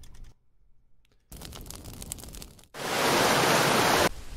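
Ambient sound-effect recordings played back from audio files in music software: after a moment of near silence, a steady noise-like ambience comes in, then a much louder rushing noise for about a second and a half that cuts off suddenly, giving way to a softer ambience.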